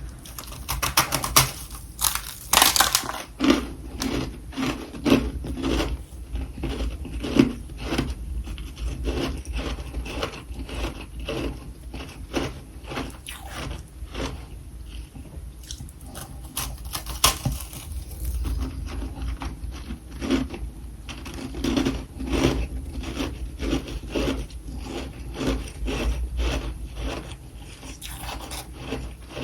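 Close-up crunching and scraping, many short irregular crunches in quick succession over a faint low hum.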